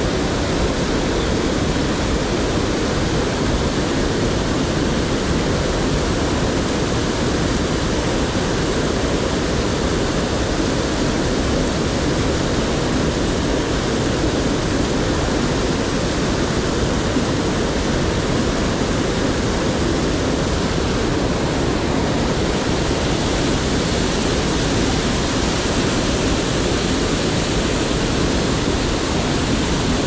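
Steady, even rush of fast river water tumbling over boulders, with a small waterfall running down the rocks.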